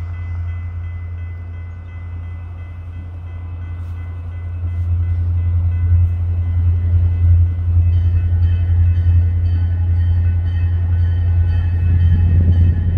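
Train rumbling by: a steady low drone that grows louder about halfway through, with faint steady high tones joining about eight seconds in.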